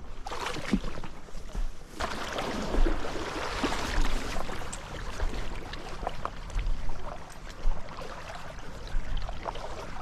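Gusty wind buffeting a GoPro Hero 10's furry Wind Slayer mic muff in uneven low rumbling gusts, strongest from about two to four seconds in. Under it runs the steady rush of a trout stream.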